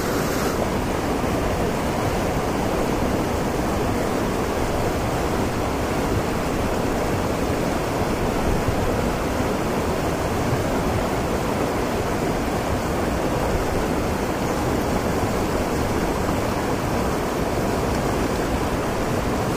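Steady rush of flowing river water, an even hiss with no break or change.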